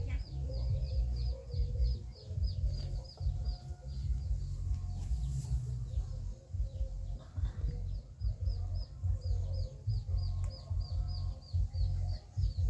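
A bird calling a long run of short, high, falling notes, about four or five a second, pausing briefly midway, over a strong uneven low rumble.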